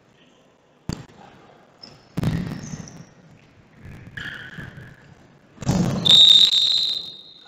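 Futsal play in a sports hall: a sharp ball strike about a second in, then two louder thuds that ring out in the hall's echo, and a long, steady, high referee's whistle blast starting about six seconds in.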